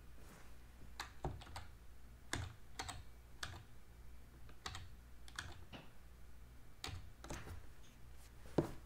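Computer keyboard keys pressed in scattered, irregular strokes, some single and some in quick clusters of two or three, over a steady low hum.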